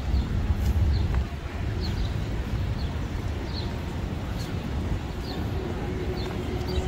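Outdoor ambience: short high bird chirps repeating every second or so over a low rumble that is loudest in the first second, with faint voices in the background.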